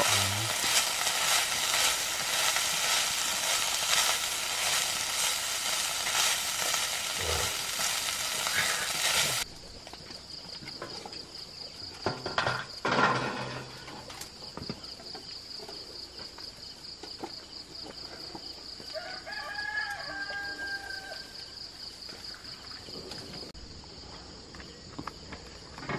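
Insects and leaves sizzling as they are stir-fried in a pan over a wood fire; the frying stops suddenly about nine seconds in. After that there is a steady high drone of insects, a couple of knocks, and a rooster crowing once past the middle.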